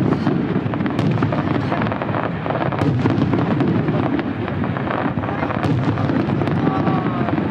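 Aerial fireworks going off in quick succession: a continuous rumble of booms overlaid with many sharp crackling bangs.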